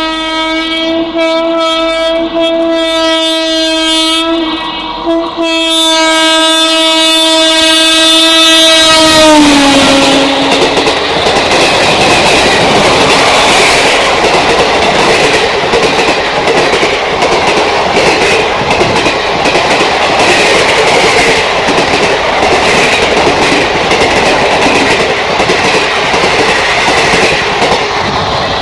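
Indian Railways WAP-4 electric locomotive sounding its horn in two long blasts, with a short break about four seconds in; the horn's pitch drops as the locomotive passes. Then the coaches of the express rush past at full speed, the wheels clattering over the rail joints.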